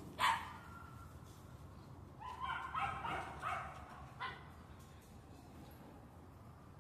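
West Highland White Terrier puppy barking: one loud, sharp bark just after the start, then a quick run of about five short, high-pitched yips around the middle.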